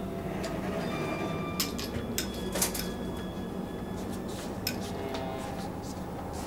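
Dark, steady low drone from a horror-film soundtrack with a few faint held tones, broken by several short, sharp clicks and creaks between about one and a half and five seconds in.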